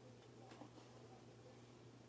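Near silence: room tone with a low steady hum and one faint click about half a second in.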